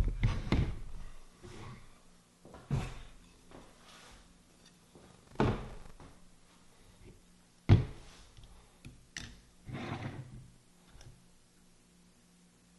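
Hollow plastic thunks of ABS pipe and fittings being handled and knocked together while an adapter is cemented in: four sharp knocks a couple of seconds apart, the last the loudest, with softer handling noise between them.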